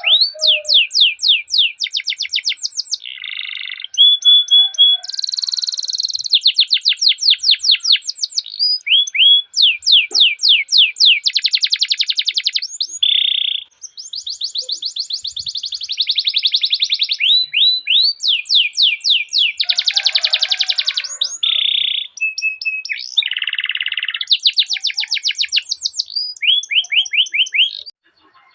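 Domestic canary singing a long rolling song: fast runs of rising chirps alternating with buzzy trills and short level whistled notes, with brief breaks between phrases. The song stops just before the end.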